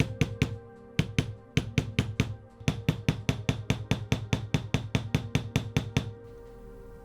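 Rapid, even hammer taps, about five a second, over background music; the tapping stops about six seconds in.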